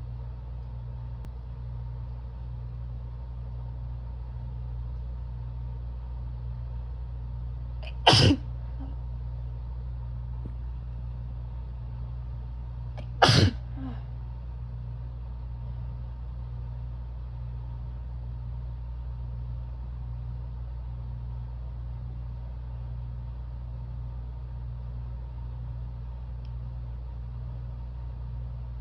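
Two brief, harsh, barky sneezes from a woman with bronchitis, the first about eight seconds in and the second about five seconds later, over a steady low hum.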